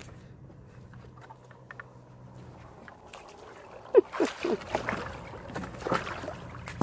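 A malamute splashing into backyard pool water as it climbs in from the edge, quiet at first, then a sudden loud burst with a few short squeaky sounds about four seconds in, followed by irregular splashing.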